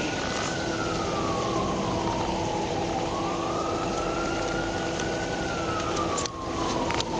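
Emergency vehicle siren on a slow wail, rising and falling twice.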